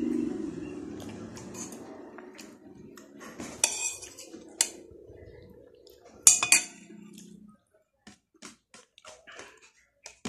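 A metal spoon clinking against a plate four times, sharp and ringing, among softer clicks of hand-eating from the plate. A low hum in the background fades out about seven seconds in.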